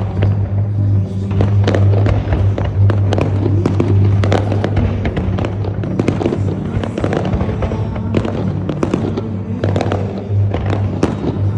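Fireworks going off, many sharp bangs in quick succession, over loud music with a steady bass line from the show's soundtrack.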